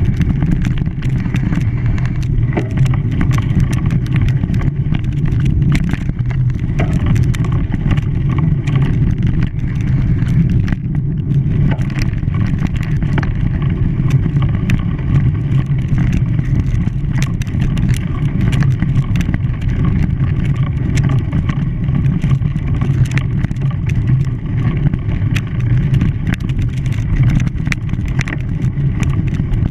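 Steady low drone of an engine running at an even speed, with scattered light clicks and rattles over it.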